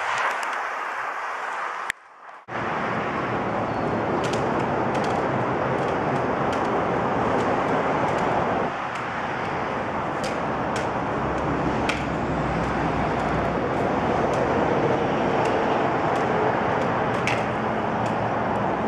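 Steady noise of freeway traffic, with a few faint sharp clicks scattered through. The sound drops out briefly about two seconds in.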